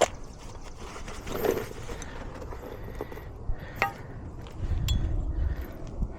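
A few sharp metal clinks and taps from roofing hand tools being handled on a shingle roof, with a low rumble of wind on the microphone about two thirds of the way through.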